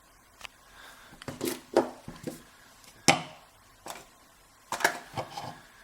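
Short, sharp clicks and knocks of a Schlage Everest lock cylinder being handled and worked on by hand, about eight at uneven spacing, the loudest about three seconds in.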